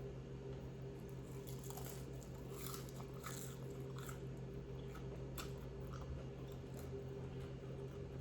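Close-up crunching and chewing of crispy fried chicken, with a run of sharp crunches in the middle, over a steady low hum.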